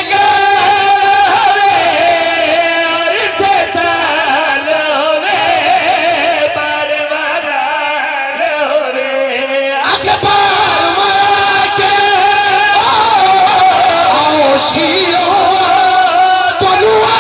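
A man's amplified voice singing a melodic recitation through microphones and loudspeakers, with long held notes and wavering, ornamented runs.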